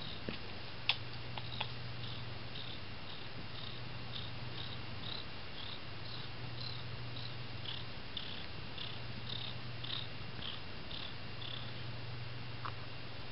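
Black-and-white domestic cat purring steadily, a content purr while its chin and cheeks are scratched, with short breaks every two seconds or so. A faint high ticking repeats about twice a second, with a sharp click about a second in.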